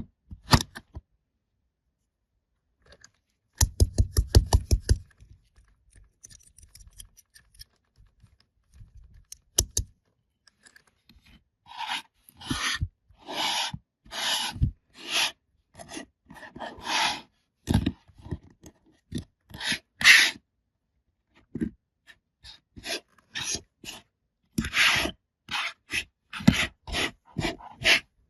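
Kinetic sand being cut and scraped in a series of short strokes, about one a second, after a quick run of rapid clicks about four seconds in.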